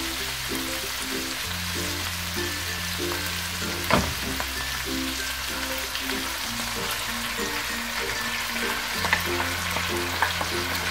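Flaked salmon and green peas sizzling in a hot frying pan as heavy cream is poured in from a carton, with one sharp knock about four seconds in. Background music with short notes and a bass line plays underneath.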